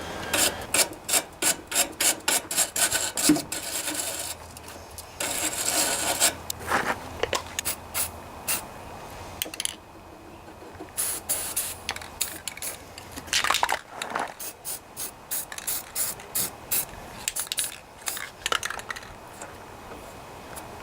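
Hand tools working on metal mower parts: long runs of quick clicking, like a ratchet, with rubbing and scraping in between and a few short pauses.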